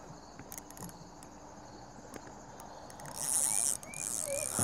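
Fishing reel working a hooked bass on a bent rod: scattered clicks, then a high hissing buzz of about half a second some three seconds in, and a weaker one near the end.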